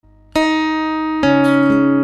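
Background music opening with plucked guitar notes: a first note about a third of a second in and further notes after about a second, each ringing on.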